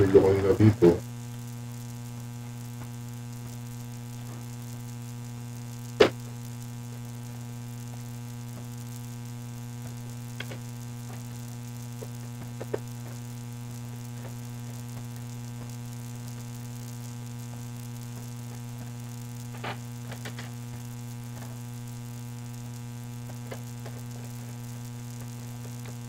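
Steady electrical mains hum, with a loud burst of noise in the first second, one sharp click about six seconds in and a few faint taps and clicks later as hands press the laptop's plastic bottom cover back into place.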